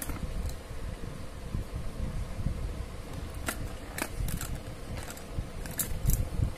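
Bangles clicking against one another and against a clear plastic storage box as a hand picks them up and moves them: a handful of sharp, irregular clicks over low handling rumble.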